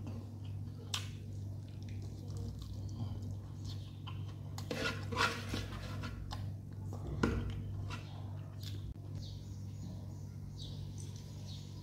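Fingers picking and scraping food off a wooden plate: scattered small clicks and taps, a cluster of them about halfway through and one sharper knock a little later, over a steady low hum.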